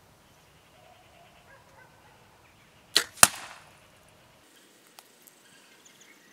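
A compound bow being shot: two sharp snaps about a third of a second apart, midway through, the second louder with a short ringing tail, as the string is loosed and the arrow flies. A few faint clicks follow.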